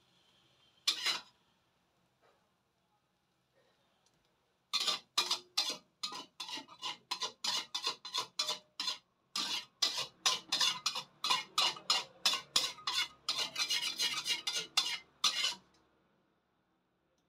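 Metal spatula scraping against a stainless steel wok in quick repeated strokes, about three a second, as egg is scooped out of the pan. The strokes stop near the end, and there is a single clink about a second in.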